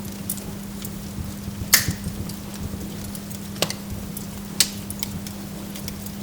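Burning logs crackling, with scattered small snaps and a few sharp pops, the loudest just under two seconds in and two more a little before and after the four-second mark, over a steady low hum.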